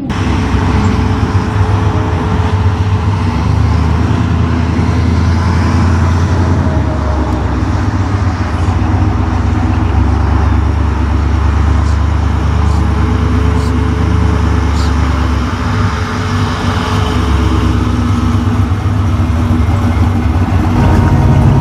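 A 1956 Chevrolet Bel Air Nomad wagon's engine running with a steady deep rumble as the car drives past. Another car's engine comes in near the end.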